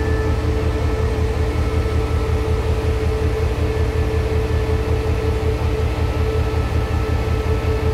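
CRRC Qishuyan diesel-electric locomotive idling steadily: a deep, even engine rumble with a constant mid-pitched hum on top.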